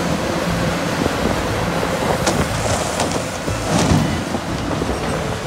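Caterpillar 6015B hydraulic mining excavator's diesel engine running steadily, with a few sharp clacks around the middle.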